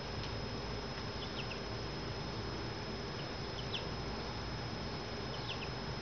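Faint, very short bird chirps in small groups about every two seconds, over a steady hiss and a thin, constant high-pitched tone.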